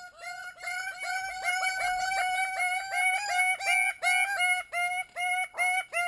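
Greater bird-of-paradise males giving loud display calls: a fast run of repeated, clipped notes, each dropping in pitch at its end, packed close together and then slowing into separate notes in the last two seconds.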